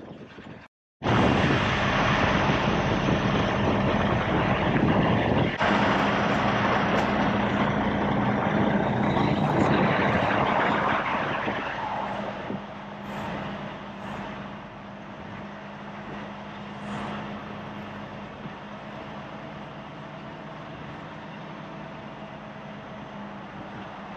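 Semi-truck diesel engine running as the truck moves, loud for the first ten seconds or so and then settling to a quieter, steady run with a constant low hum. A brief dropout cuts the sound about a second in.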